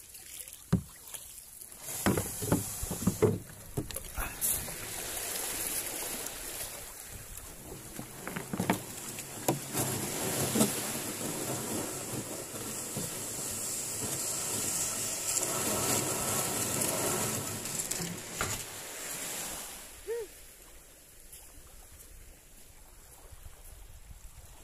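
Surf washing in and a few knocks on the hull as a small outrigger fishing boat comes ashore, then a long rushing scrape as the hull is pushed up over the sand. The noise dies down near the end.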